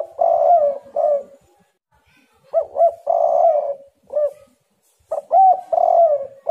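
Spotted dove (tekukur) calling: its cooing phrase comes three times, about two and a half seconds apart, each a couple of short upswept notes, then a longer coo and a final short note.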